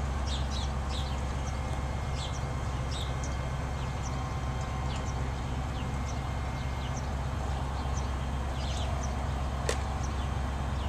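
A truck engine running steadily, with birds chirping over it and one sharp click near the end.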